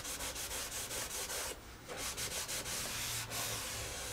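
A cloth rubbed in quick repeated strokes over the glued covering of a model aircraft's flap, pressing it down and wiping off PVA glue. There is a brief pause about one and a half seconds in.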